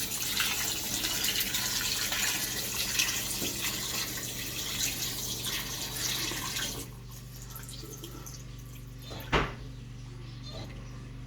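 Fisher & Paykel MW511 washing machine filling, with a steady rush of water into the tub that cuts off suddenly about seven seconds in. A low steady hum carries on after the water stops, and there is a single sharp clunk a couple of seconds later.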